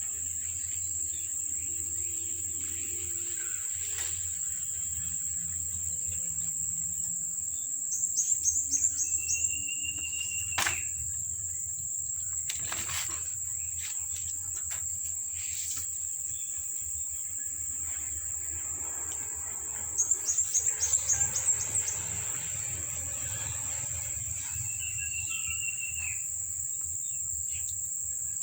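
Steady high-pitched insect chorus. Two bursts of about seven quick chirps come roughly 8 and 20 seconds in, and two thin, high, falling calls come about 10 and 25 seconds in.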